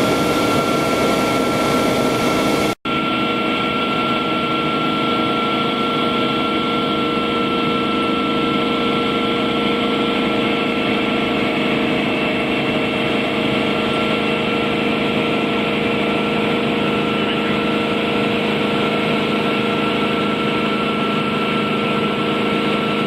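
Bell 47 helicopter's piston engine and rotor running steadily in flight, an even mechanical drone with fixed tones. There is a split-second dropout to silence about three seconds in.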